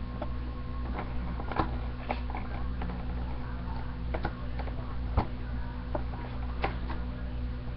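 Scissors cutting into stiff plastic packaging: irregular snips and clicks, the sharpest about five seconds in, over a steady low hum.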